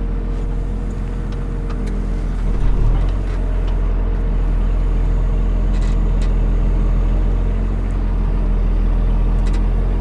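New Holland T7060 tractor engine running steadily, heard inside the cab. A little under three seconds in the note shifts and briefly grows louder, as the hydraulic spool is worked to turn the reversible plough over.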